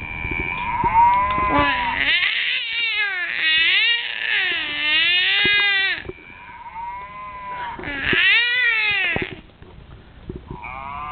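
A young child's drawn-out, wavering "moo" imitating a cow: one long call, then a second shorter one, and a brief third near the end.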